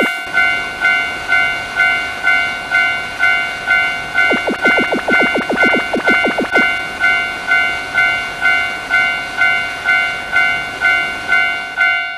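Japanese level-crossing warning bell ringing 'kan kan' steadily, about two strokes a second, over the rumble of a passing train. From about four seconds in, for some two seconds, the train's wheels clatter rapidly over the rail joints.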